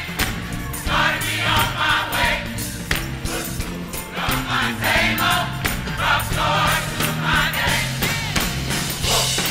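Gospel choir singing with a band: a steady bass line under the voices, drums and cymbals hitting through it, and a tambourine jingling.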